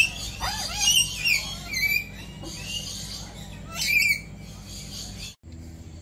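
White cockatoos calling: a run of shrill, sweeping squawks and chattering calls, loudest at the start and again about four seconds in, stopping suddenly about five seconds in.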